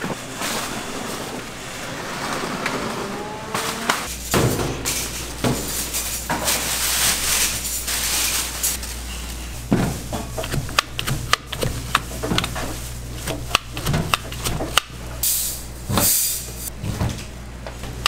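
Kitchen work sounds: irregular knocks, clicks and scraping of utensils and containers, with a low steady hum coming on about four seconds in.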